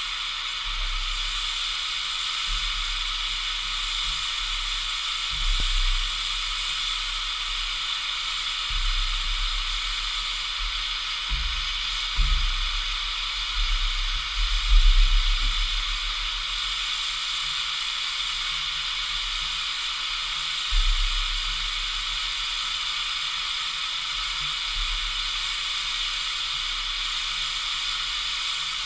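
Miniature 7¼-inch gauge steam locomotive standing with steam hissing steadily, with a few brief low rumbles underneath.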